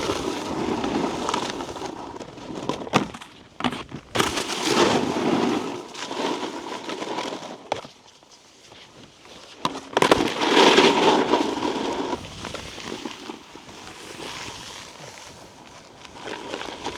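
A snowboard scraping and skidding over icy, hard-packed snow: a rough edge scrape that swells and fades in waves. There are a few sharp knocks about three to four seconds in, a quieter stretch, then the loudest scrape about ten seconds in.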